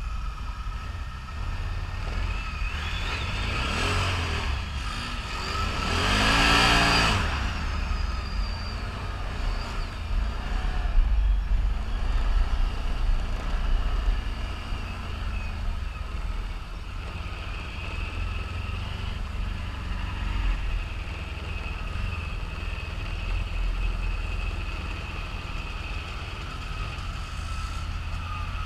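ATV engines running on a trail ride, with a steady low rumble throughout. The engine noise swells to its loudest about six seconds in, its pitch rising and falling as the throttle is worked.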